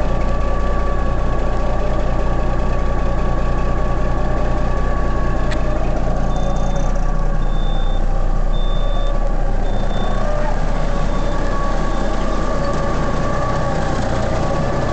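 Kenworth W900's 425 hp Caterpillar diesel idling steadily after a cold start. From about six seconds in, a row of about six short high beeps sounds and fades away.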